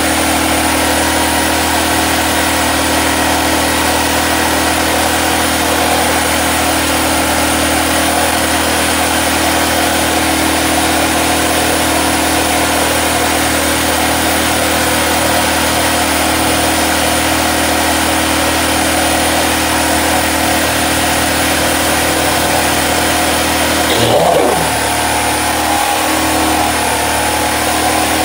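Portable gasoline generator's engine running steadily at a constant speed, with one brief louder disturbance near the end.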